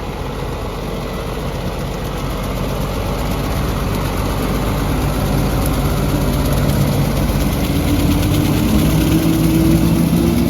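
Tractor engine running under load with a brush hog, growing steadily louder, its engine note rising in pitch over the last few seconds.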